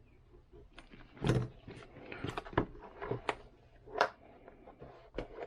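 Irregular clicks, taps and a few louder knocks of a package being handled while a label on it is cut open.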